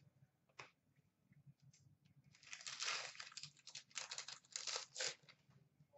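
Wrapper of an Upper Deck Champs hockey card pack being torn open and crinkled: a single soft click, then a stretch of crackling from about two seconds in until near the end.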